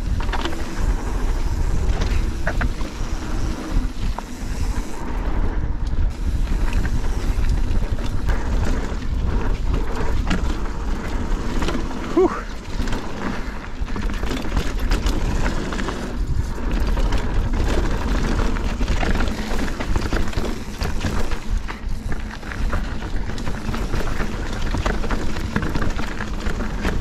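Hardtail mountain bike ridden down a dirt trail: steady tyre and wind rumble on the microphone, with frequent clatter and knocks from the bike over bumps.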